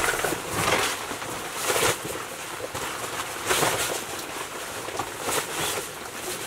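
Outdoor ambience in light rain on an open boat: a steady hiss of rain and wind, broken by four brushing swishes that swell and fade.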